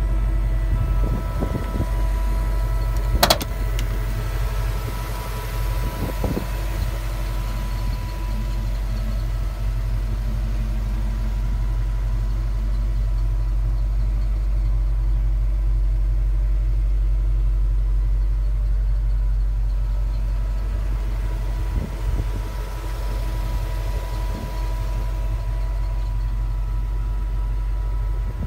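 1978 Ford F-150 pickup driving slowly, its engine running with a steady low drone, heard from inside the cab. A single sharp knock about three seconds in.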